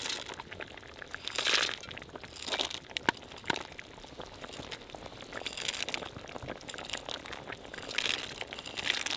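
Raisins tipped from a small bowl into the simmering broth of a kazan, landing in a series of short pattering pours a second or two apart, with a few sharp clicks in between.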